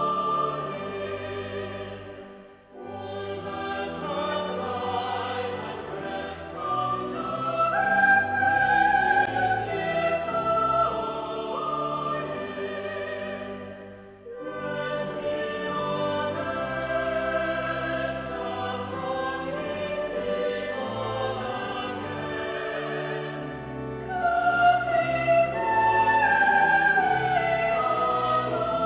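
Choir singing a slow piece of sacred music in long, sustained phrases, with two brief breaks between phrases.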